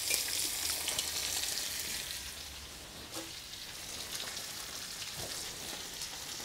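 Rack of lamb searing on a hot charcoal grill grate: the meat and its fat sizzle steadily, with small crackles and pops. The sizzle eases slightly about halfway through.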